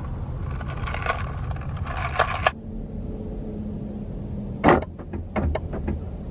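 Low steady rumble of a car heard from inside the cabin, with one sharp knock about three quarters of the way through followed by a few quick clicks.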